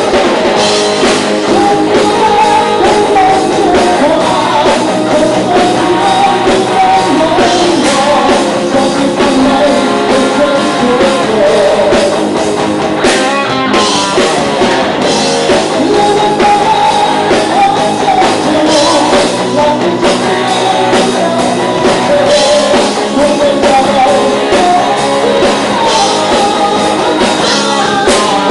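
A rock band playing live, loud and continuous, with distorted electric guitars, drum kit and a singer's wavering vocal line over the top.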